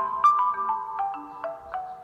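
Background music: a light melody of struck, bell-like notes, a few a second, in the manner of a marimba or glockenspiel.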